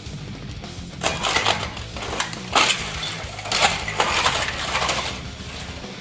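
An inkjet printer's plastic housing and parts being smashed and broken apart: repeated cracking, crunching impacts with bits rattling loose.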